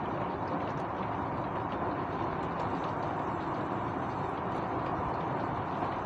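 Steady rain with wind: a continuous, even rush of noise with faint scattered ticks of drops.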